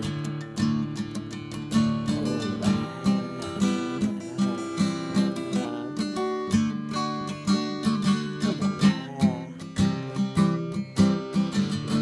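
Acoustic guitar strummed in a steady rhythm, its chords ringing between strokes.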